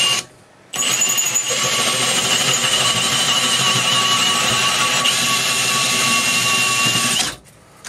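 Cordless drill boring into a cast intake part: a steady motor whine with a little grinding. It stops briefly just after the start, then runs again for about six and a half seconds and stops near the end.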